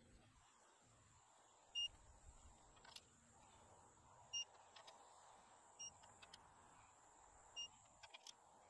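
Digital torque wrench beeping four times while ARP head stud nuts on an LS cylinder head are torqued down. The beeps are short and high, a couple of seconds apart, each marking a nut reaching the set torque. Faint clicks from the wrench come between them.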